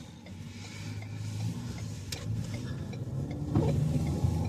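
Car engine and road noise heard from inside the cabin, growing steadily louder as the car gathers speed, with a faint regular ticking.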